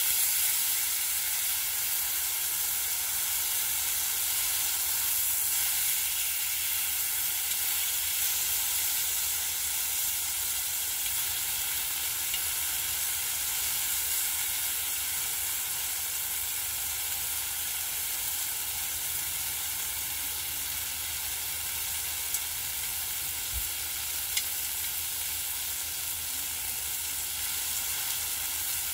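Slices of pork belly and kimchi sizzling steadily in a black griddle pan over a camping gas burner, with a few light clicks in the second half.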